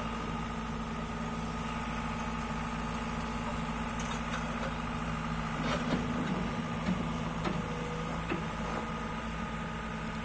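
JCB JS145 tracked excavator's diesel engine idling steadily, with a few short clunks and rattles around the middle.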